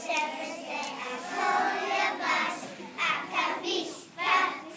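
Children singing, high-pitched young voices carrying a tune.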